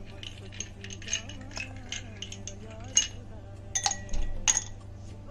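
Ice cubes dropped by hand into a tall drinking glass, several sharp separate clinks against the glass. The loudest clink comes about three seconds in, with a cluster of clinks near the end.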